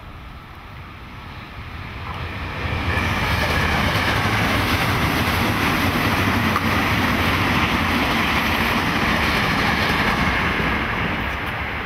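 Electric train passing on the tracks just beside the path. The noise swells about two seconds in, stays loud and steady, and eases a little near the end.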